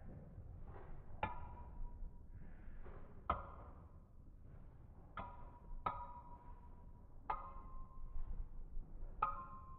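Dark Wolf and Earth Aquila Beyblade tops spinning against each other in a plastic stadium: their metal wheels clash about six times at uneven intervals, each clash a sharp click followed by a short metallic ring, over a faint whirr of spinning.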